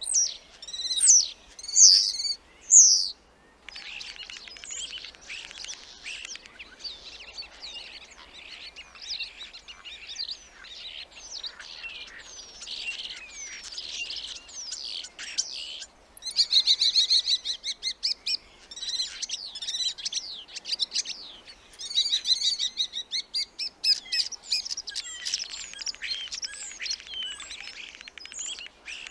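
Starling song: a few loud whistled notes at the start, then a dense, varied run of chirps, clicks and whistles that slide up and down, with a brief break a little past halfway.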